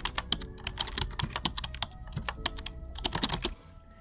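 Rapid, irregular tapping of fingers or hands drumming on a tabletop as a makeshift drumroll, which stops suddenly about three and a half seconds in.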